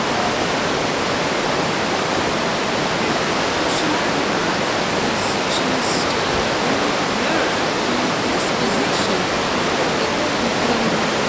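Katashina River water rushing through the rock gorge at Fukiware Falls: a steady, loud rush with no let-up, loud enough to drown out a voice.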